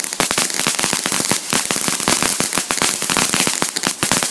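Ground firework fountain crackling: a dense, rapid run of sharp little cracks and pops.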